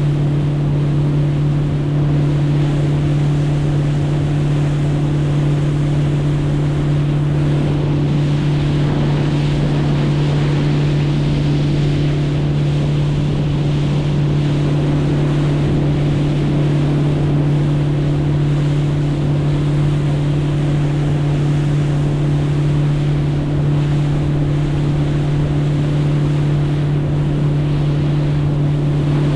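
Boat motor running at a constant speed, a steady low drone, with wind and water noise.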